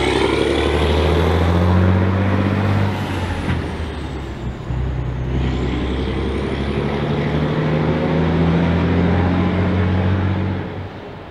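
Volvo F16 truck's big straight-six diesel pulling away under load. The engine note dips about three seconds in, then climbs steadily again, with a faint high whistle falling and rising above it. It fades near the end as the truck draws away.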